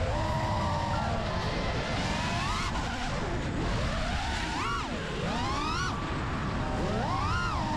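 FPV quadcopter's Xing2 2207 brushless motors whining, their pitch swooping sharply up and down several times as the throttle is punched and chopped, over a steady rush of wind and prop wash.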